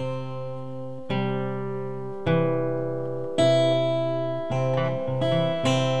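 Acoustic guitar strumming chords, each left ringing. The strums come about once a second at first and more quickly in the last two seconds.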